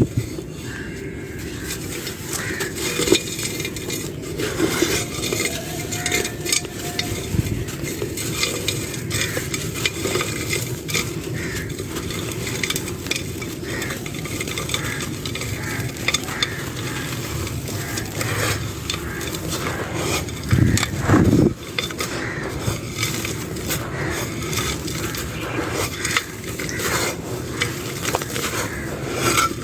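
Dry clay being crumbled: continuous crunching and crackling of small pieces breaking, with a couple of louder crunches about two-thirds of the way through.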